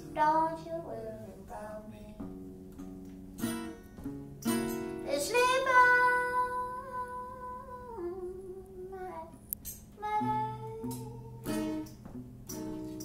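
Live guitar music in a New Orleans gospel service song, with a melody line that holds one long note for about three seconds midway.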